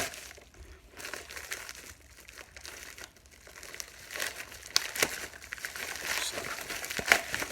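Packaging crinkling and rustling as a parcel is unwrapped by hand, with scattered sharp crackles; the handling gets busier about halfway through.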